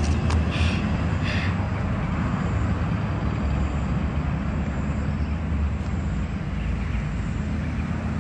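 Steady low outdoor rumble, with a few short high chirps in the first second and a half.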